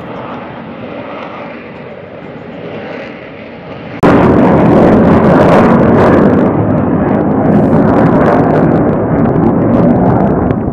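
F-35B Lightning II jet noise from its single F135 engine, with the landing gear down: a steady, fairly distant rush at first, then suddenly much louder about four seconds in, a heavy rumble with crackling.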